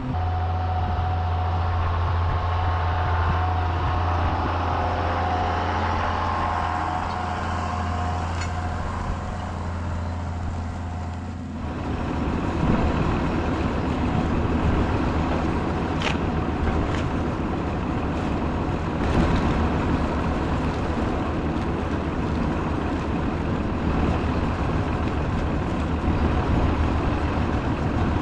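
Tractor engine running steadily with a low drone. About twelve seconds in, the sound changes abruptly to a rougher, noisier machine sound with a few sharp clicks.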